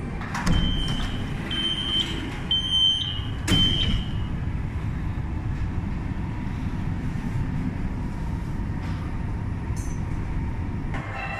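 Metro train door warning: four short high beeps about a second apart, with sharp knocks at the start and with the last beep. Then the steady low rumble of the subway train running, heard from inside the car.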